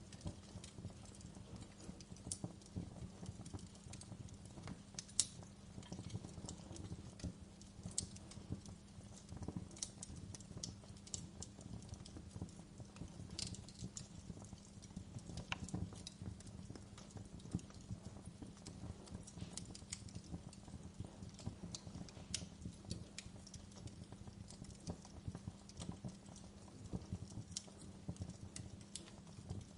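Wood fire crackling in a fireplace: irregular sharp pops and snaps over a low rumble, with one louder pop about five seconds in.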